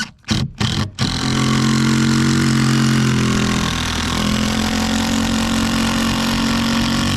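Cordless drill/driver driving a 6-inch anchor screw through strapping and foam sheathing into a rafter: a few short bursts, then the motor runs steadily under load for about six seconds, its pitch dipping briefly midway.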